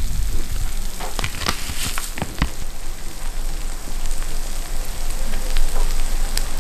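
Pan-fried smelt (dori-baengbaeng) and rice sizzling in a hot frying pan, left on purpose to stick and crisp on the bottom. A few sharp clicks sound over the sizzle, mostly about one to two and a half seconds in and once near the end.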